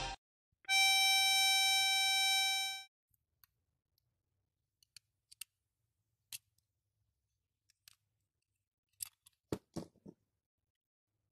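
A single steady high note held for about two seconds, then sparse small clicks and metal taps as a Marine Band harmonica is handled and its cover plates are taken off, with a few louder knocks about nine seconds in.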